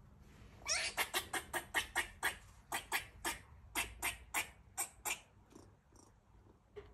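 Female gray squirrel in heat barking: a rapid run of short, sharp barks, about three or four a second, starting just under a second in, then spacing out and fading after about five seconds.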